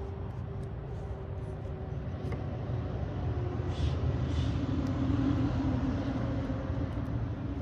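Low steady rumble of a motor vehicle's engine, growing louder from about halfway through. Two short hisses come a little past the middle.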